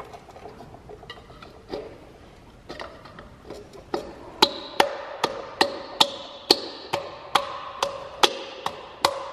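Sharp metallic taps, each with a short ring, scattered and faint at first, then louder and regular at about two or three a second from about four seconds in, as a chrome hub cap is tapped onto a truck's dual rear wheel hub. Corrosion on the hub makes the cap a tight fit.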